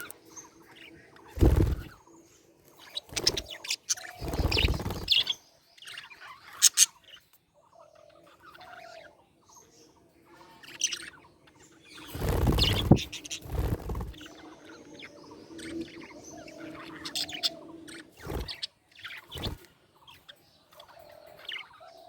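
Budgerigars chirping and chattering in quick high notes, with several loud dull thumps in between: about one and a half seconds in, near four and a half seconds, a pair around the middle, and two more near the end.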